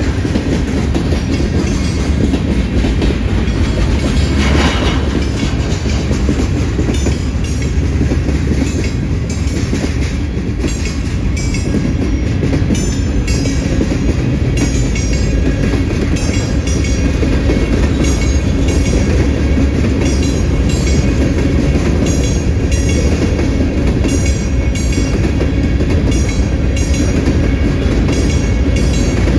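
Freight train cars rolling past close by: a steady low rumble with wheels clacking over the rail. Short high-pitched squeaks repeat from about seven seconds in.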